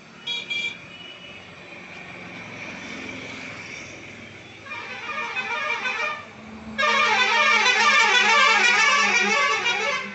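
A loud warbling horn, its pitch wavering rapidly up and down, comes in about seven seconds in after a fainter warble a couple of seconds earlier. Before that there are a few short toots at the start, then a steady hiss.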